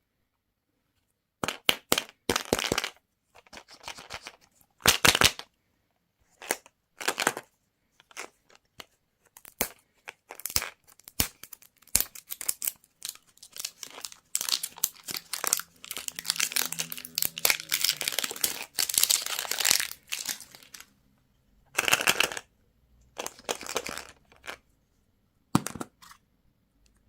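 Candy wrappers being crinkled and torn open by hand in irregular bursts, with a few short sharp clicks.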